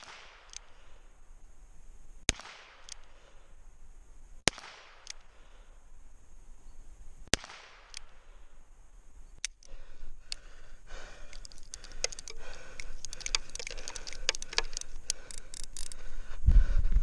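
Handgun fired single shots, five about two seconds apart with the last one fainter, each followed by a short echo. After them comes a growing stretch of clatter and rustling noise.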